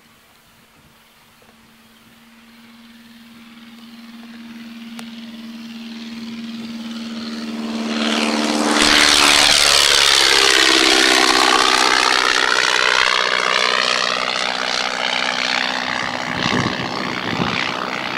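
De Havilland Tiger Moth biplane's Gipsy Major engine and propeller flying past: faint at first and growing steadily louder, loudest about nine seconds in with a slight drop in pitch as it passes, then easing off only a little.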